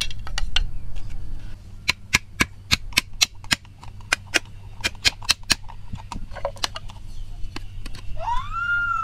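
Sharp knocks of a hammer striking a blade set into a bamboo strip to split it, a quick run of about three strikes a second in the middle, with scattered strikes before and after. Near the end comes a single rising-and-falling high call.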